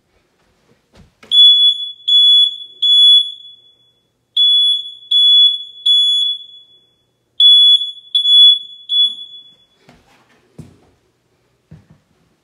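Smoke alarm sounding its temporal-three pattern: three groups of three loud, high-pitched beeps, with a short pause after each group.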